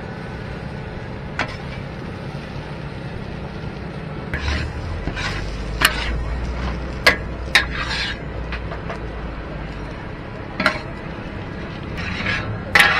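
Metal spatula and ladle clanking and scraping against a large, shallow wok as fried rice vermicelli is scooped out. Sharp single clanks come every second or two over steady background noise.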